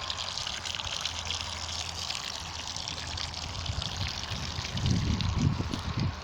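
Water pouring steadily from a groundwater well's single-jet pump outlet, running well after the broken jet was repaired, with a steady low hum underneath. Low rumbling comes in near the end.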